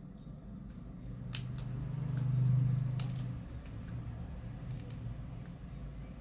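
Crab shell being cracked and pulled apart by hand, with a few sharp snapping clicks. A low hum swells up and fades away in the first half.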